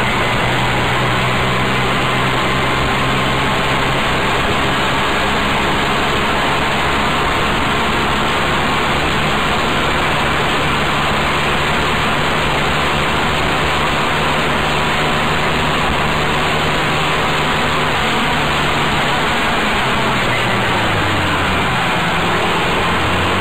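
Adly GK125R buggy's 8 hp engine running steadily under way, over a steady rush of wind and road noise. The engine note drops about three seconds before the end as the buggy slows.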